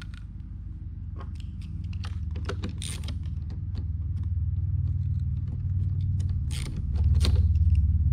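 Red plastic battery terminal cover being flexed and pressed into place by hand, with creaks and small clicks. Under it runs a steady low hum that grows louder near the end.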